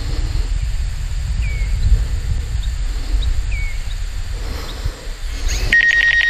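Strong wind buffeting the microphone, with two short chirping bird calls. Near the end a high, rapidly pulsing steady tone starts abruptly.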